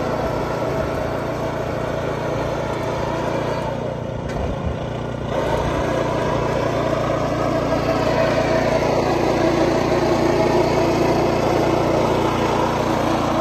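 Small engine of a ride-on sand topdressing spreader running steadily as the machine drives and spreads sand, dipping briefly about four seconds in and a little louder after.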